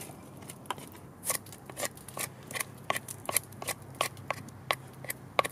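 Knife blade shaving the surface of a dried, split black cherry log in quick repeated strokes, about three a second.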